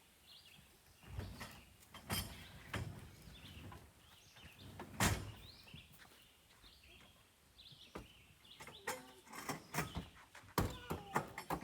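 Irregular knocks and clunks from work on a pop-up camper, with a sharp loud one about five seconds in and a quicker run of them near the end.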